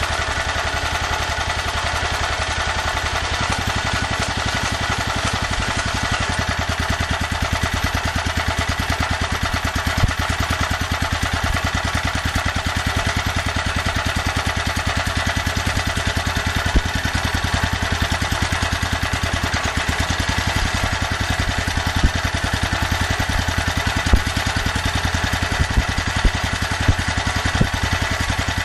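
Small generator engine running steadily on HHO (hydrogen-oxygen gas from an electrolysis cell), with a handful of sharp pops over the even running, more frequent near the end.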